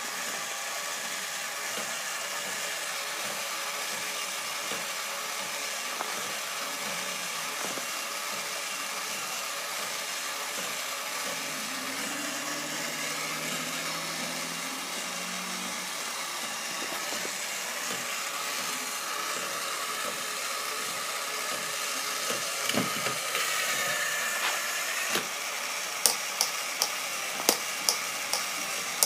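Tomy Omedetabot battery toy robot running, a steady mechanical whir from its small motor and gears as it moves about. Near the end, sharp clicks come about twice a second.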